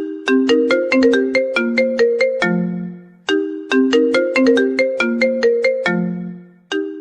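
Mobile phone ringtone melody: a short phrase of quick, bright notes ending on a longer low note, repeating about every three and a half seconds.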